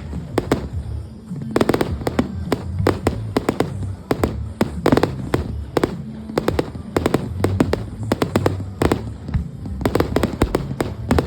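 Fireworks show: many sharp shell bursts going off in quick clusters every second or two, over music playing with the display.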